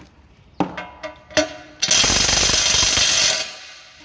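Makita TW007G 40Vmax brushless 1/2-inch impact wrench running in assist mode 2: a few clicks, then its rapid hammering impacts for about a second and a half, stopping with a brief high whine.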